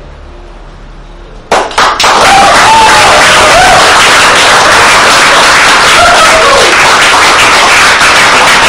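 A small room of people suddenly bursting into loud applause and cheering about a second and a half in, the clapping dense and close, with shouting voices mixed in.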